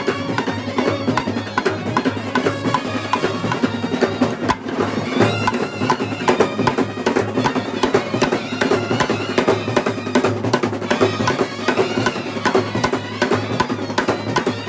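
A Kerala brass band playing: trumpets and euphoniums carry the melody over fast, dense snare-drum strokes and bass-drum beats.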